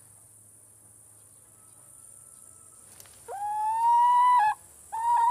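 Chicken calling: after a quiet stretch, one long drawn-out call of about a second, then a shorter second call near the end.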